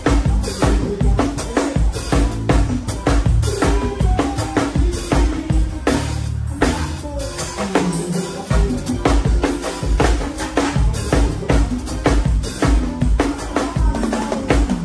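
Acoustic drum kit played live in a band's forró song: a steady, driving groove of bass drum, snare and cymbals, with bass and other instruments underneath and a short drum fill about two-thirds of the way through.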